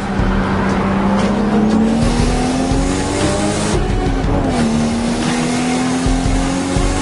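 Car engine accelerating, its pitch climbing slowly; the pitch falls about four and a half seconds in, then climbs again.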